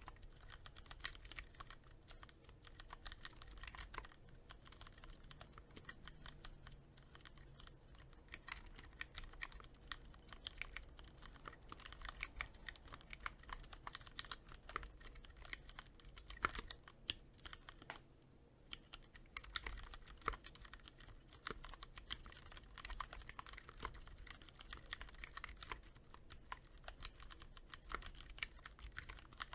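Typing on a Cherry MX Board 3.0S mechanical keyboard with linear Cherry MX Red switches, lightly lubed with Krytox 105: a steady stream of quick key clacks with a brief lull a little past halfway.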